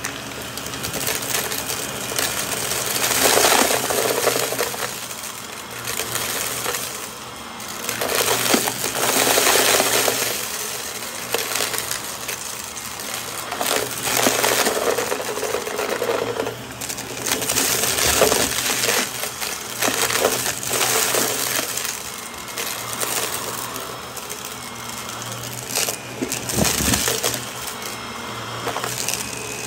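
Shark Navigator upright vacuum running on a shaggy rug, sucking up a crunchy mix of glitter, sequins and small debris that crackles and rattles through the nozzle. Over a steady motor hum, the crackling comes in repeated surges a few seconds apart.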